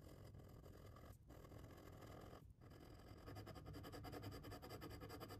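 Glass dip pen scratching across paper. It starts faint, then about three seconds in turns to quick back-and-forth scribbling strokes, many a second.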